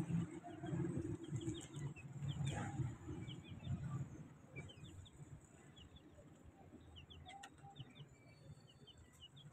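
Caged birds chirping: faint, short high chirps scattered through, over a low rumble in the first few seconds.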